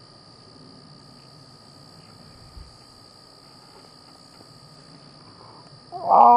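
Faint steady insect trilling, then about six seconds in a loud, nasal, moaning moose call begins, held on one low pitch: a hunter's imitation of a cow moose calling to a bull.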